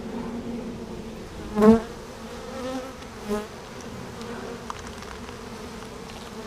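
A honeybee colony buzzing steadily inside a chainsawed-open hollow log, with two brief louder buzzes, about one and a half and three seconds in, as single bees pass close.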